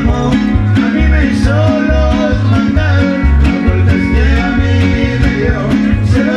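Live string band playing a ranchera: guitars strumming over a bass line that alternates notes on the beat, with a wavering melody line above.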